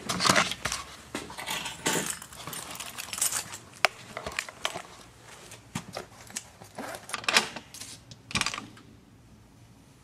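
A bunch of keys jangling amid rustling of clothing and scattered sharp clicks and knocks from handling, dying down in the last second or so.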